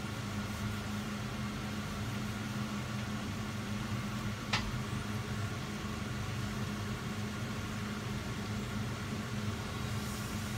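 Steady low mechanical hum of a running kitchen appliance, with one short sharp click about four and a half seconds in.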